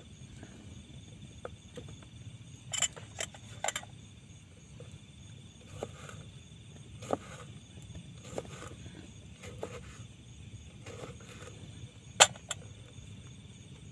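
Steady high chirring of insects with irregular sharp clicks and knocks of objects being handled; a small cluster comes about three seconds in and the sharpest knock about twelve seconds in.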